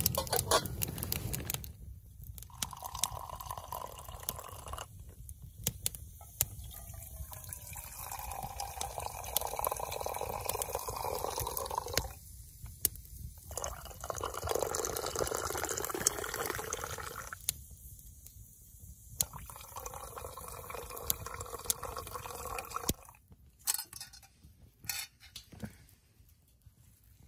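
Tea poured from a pot into enamel and stainless steel camp mugs in four separate pours, each lasting a few seconds. A few light knocks near the end.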